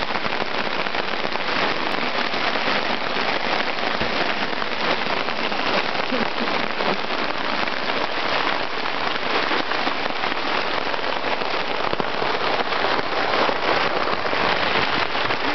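Hail pelting a tarp overhead: a loud, dense, continuous clatter of countless small hits that keeps a steady level throughout.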